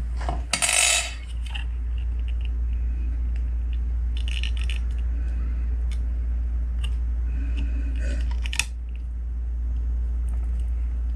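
A metal hand tool clinks down on a workbench about half a second in. After that come small clicks and scrapes as needle-nose pliers pick isopropyl-softened hot glue off a speaker crossover board. A steady low hum runs underneath throughout.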